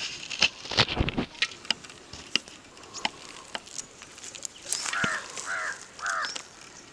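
A bird calling three times in quick succession about five seconds in, after a string of sharp clicks and snaps in the first few seconds.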